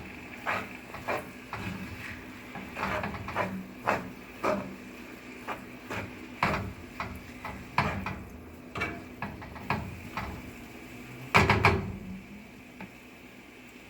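Kitchen clatter: a utensil knocking and scraping against a pan as browning taco meat is stirred, in irregular sharp knocks with one louder clack about eleven and a half seconds in.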